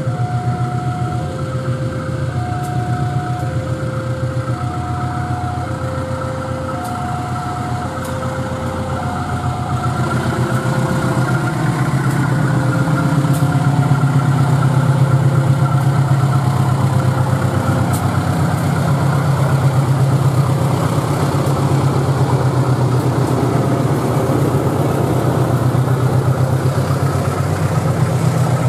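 Diesel-electric locomotive hauling a passenger train past, its engine drone growing louder from about halfway through, with scattered wheel clicks. A level-crossing warning alarm sounds two alternating tones over it, fading out a little past halfway.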